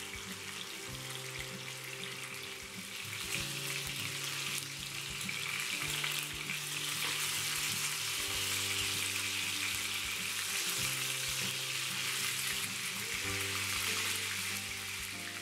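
Pork ribs sizzling as they fry in a frying pan, a steady hiss that grows louder about three seconds in.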